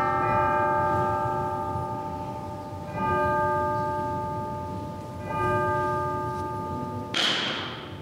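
Altar bell rung at the elevation of the chalice during the consecration: a single struck bell with several ringing overtones, sounding again about three seconds in and once more about two seconds later, each stroke slowly dying away. Near the end a brief loud noisy burst cuts across it.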